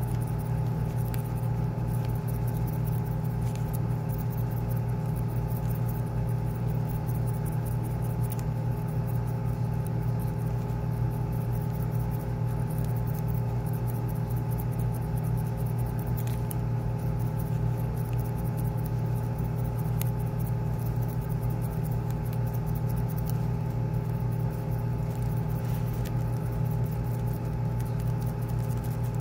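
A steady machine hum, even in level, made of several fixed pitches over a fast low flutter, with faint small clicks and rustles of hands working yarn and hair with a crochet hook close to the microphone.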